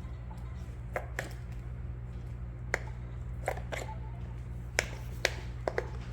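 Pop It! Pro fidget toy's silicone bubbles being pressed: about seven or eight sharp pops at irregular intervals, a second or so apart, over a low steady hum.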